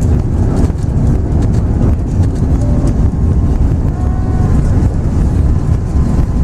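Cabin noise of an Airbus A380 during landing: a loud, steady, deep rumble with a hiss of airflow above it.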